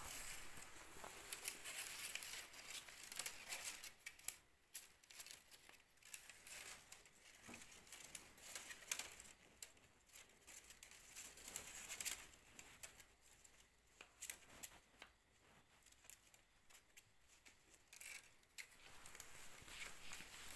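Thin dry strips of a woven pot trivet rustling, scraping and clicking irregularly as hands bend and thread them into the weave.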